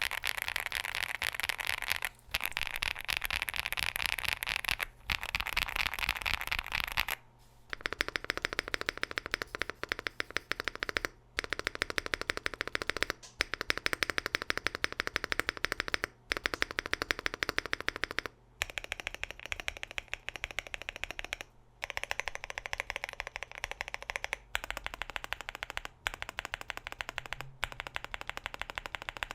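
Fast, continuous typing on a WOB Rainy 75 Pro mechanical keyboard with Kailh Cocoa switches, PBT cherry-profile keycaps, an FR4 plate and a gasket-mounted aluminium case. The keystrokes patter densely, with short pauses every few seconds and a slightly longer break about seven seconds in.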